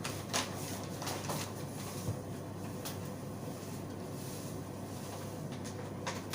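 A few light clicks and knocks from handling a coffee machine's parts during refilling, spaced out over a steady low room hum.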